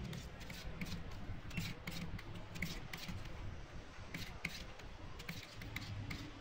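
A small wooden stick tapping a stack of thin lead-acid battery plates, with irregular sharp clicks about two to three a second as the plates knock and rattle against each other.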